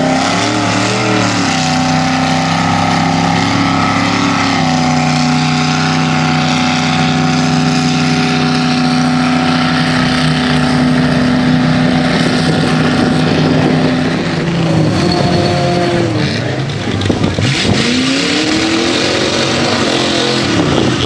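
Lifted mud truck engines running hard at high revs while the big tyres churn through a deep mud pit. The engine note holds steady for most of the time, then rises and falls in revs near the end.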